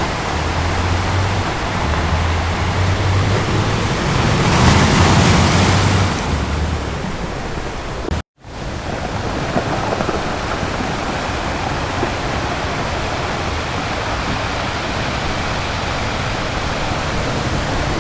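Ocean surf washing onto a beach, with a wave breaking louder about four to six seconds in. The sound cuts out completely for a moment just after eight seconds, then steady surf resumes.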